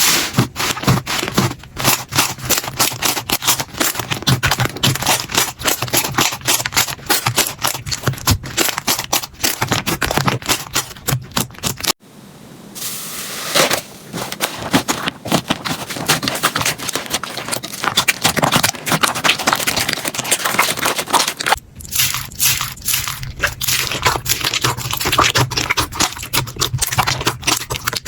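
Slime being squeezed and pressed by hand, making dense runs of sticky crackling pops and clicks. The texture changes abruptly twice, about twelve and twenty-two seconds in, as one slime gives way to another.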